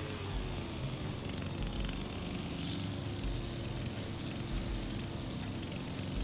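A steady, distant engine hum, with wind gusting and rumbling on the microphone.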